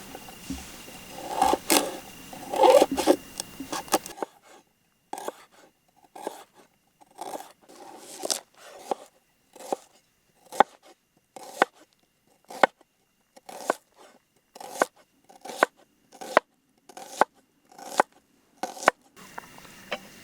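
Knife cutting vegetables: a few seconds of irregular scraping and clatter, then a long, even run of short cutting strokes about two a second.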